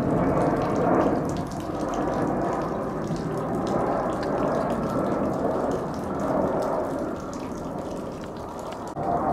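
Jet airliner flying low overhead: the steady rushing roar of its engines, with a faint hum of engine tones in it.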